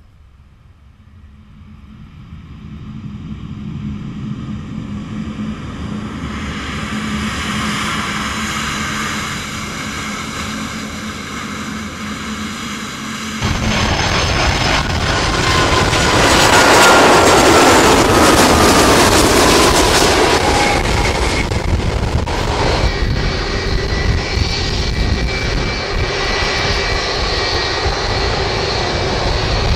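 Airbus A350's jet engines growing steadily louder as the airliner comes nearer along the runway after landing. After an abrupt cut, an Airbus A330-200's jet engines, louder, as it passes low on approach, their whine falling in pitch as it goes by, then a steady engine rumble.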